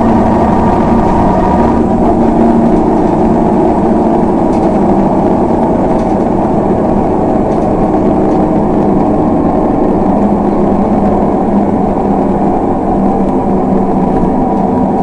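LiAZ 6213.22 articulated bus's diesel engine running, heard from inside the passenger cabin as a steady drone; the deepest rumble eases off about two seconds in.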